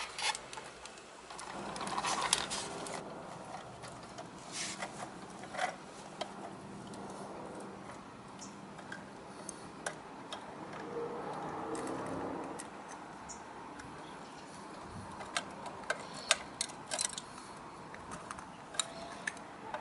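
Small plastic and metal clicks, ticks and scrapes from 1/34-scale die-cast model garbage trucks and a toy trash cart being worked by hand. The clicks come scattered and irregular, with two longer, softer scraping stretches, one about two seconds in and one about eleven seconds in.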